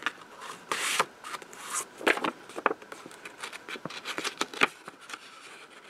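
Sheets of paper and cardstock rustling and scraping as they are handled, with scattered sharp crinkles and clicks.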